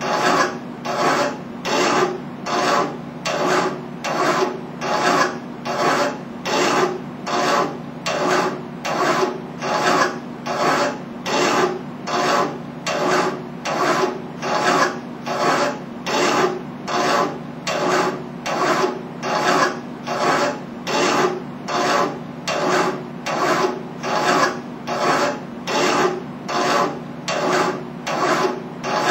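Hand file rasping on a metal workpiece clamped in a bench vise, in steady even strokes, about three every two seconds.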